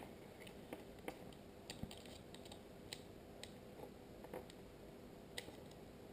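Faint, irregular small clicks and taps as the plastic parts of an IP camera are handled and fitted together.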